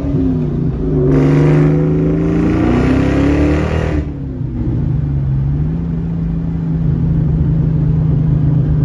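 New Edge Ford Mustang V8 heard from inside the cabin, accelerating hard with its pitch rising for about three seconds, then easing off abruptly about four seconds in and cruising on a steady drone.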